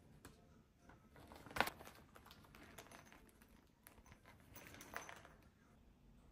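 Soft rustling and crinkling of cardboard and plastic packaging being handled, with a sharper rustle about one and a half seconds in and another about five seconds in.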